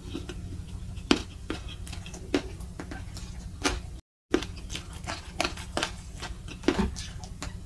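Close-miked chewing of fried spleen: wet mouth clicks and smacks in an irregular string, with fingers dabbing sambal in a stone mortar, over a steady low hum. The sound cuts out for a moment about four seconds in.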